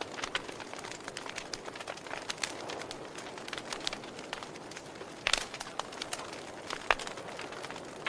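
Fire crackling: a steady low rushing with frequent sharp pops, the loudest a little over five seconds in and just before seven seconds.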